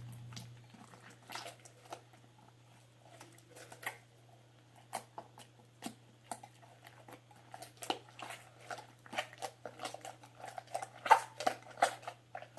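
Hands mixing and kneading sticky slime being activated with borax: irregular wet clicks and squelches, busier and louder in the second half.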